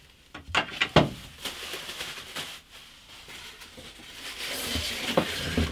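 Wooden workbench parts being handled in a cardboard shipping box: three sharp knocks of wood about a second in, then a rustling, scraping noise of plastic wrapping and wood against cardboard that builds near the end, with two more knocks.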